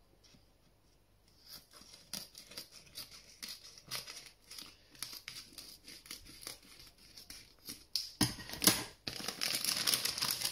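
Plastic vacuum-sealer bag being cut open and pulled apart, crinkling and rustling with small snips and ticks. The crackling grows louder and denser from about eight seconds in as the bag is opened up.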